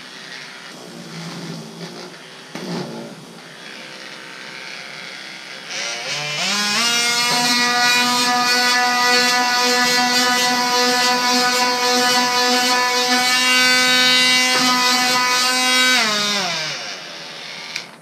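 A MEEC Tools 18V cordless oscillating multitool fitted with a triangular sanding pad is switched on about six seconds in. Its whine rises quickly to a steady high pitch while it sands thick varnish off a wooden tabletop, then winds down and stops near the end. Before it starts there are only faint handling sounds.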